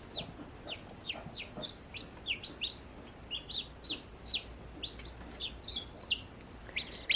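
Newly hatched baby chicks peeping: a steady stream of short, high peeps, each falling in pitch, several a second.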